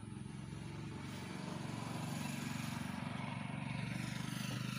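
A motor vehicle engine passing by, growing steadily louder and loudest near the end, with a fast even throb.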